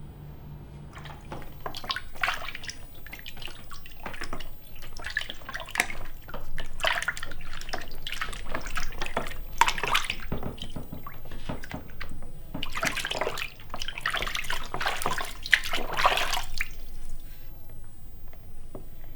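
Water splashing and trickling in irregular bursts.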